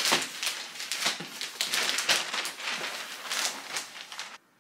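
Gift-wrapping paper rustling and crackling in a quick run of crinkles as it is unrolled and pulled over a large cardboard box, stopping abruptly near the end.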